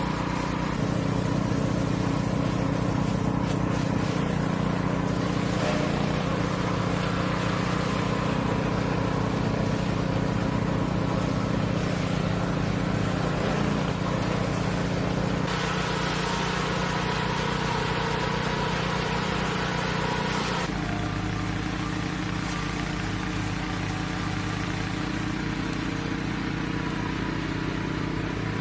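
A machine's engine running steadily for the whole stretch, its note shifting about 20 seconds in.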